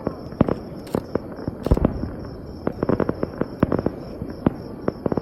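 Aerial fireworks going off in rapid, irregular succession: many sharp bangs a second over continuous crackling.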